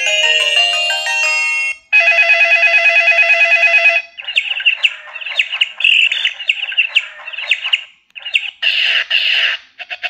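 Preloaded ringtones of an LG C2000 phone previewed one after another through its small speaker. A chiming melody cuts off about two seconds in, then comes a fast pulsing ring for about two seconds, then a nature ringtone of synthesized bird chirps, and another tune starts near the end.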